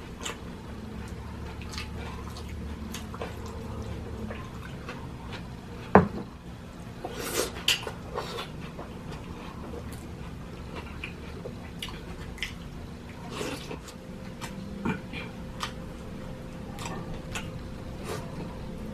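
Room tone with a steady low hum and scattered light clicks and taps, the sharpest about six seconds in.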